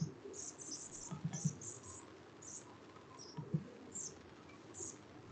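Computer mouse clicking: scattered light clicks, with a quick run of three about a second in.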